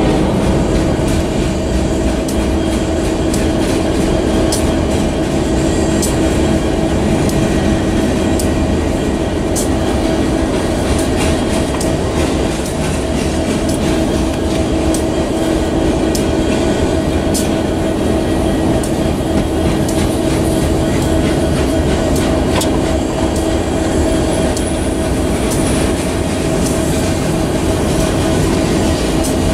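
Freight cars of a manifest train rolling past: a steady rumble of steel wheels on rail, with scattered sharp clicks and a steady ringing tone held throughout.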